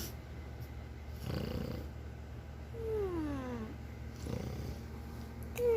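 A sleeping man and a two-year-old child snoring: noisy breath snores about a second and a half in and again after four seconds, and a voiced snore that slides down in pitch for nearly a second about three seconds in, with another starting at the very end.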